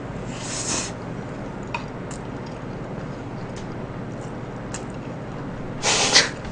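Eating at a table: a few light clicks of chopsticks on a bowl, and short breathy hisses of breath through the nose while chewing with the mouth closed, one about half a second in and a louder one near the end.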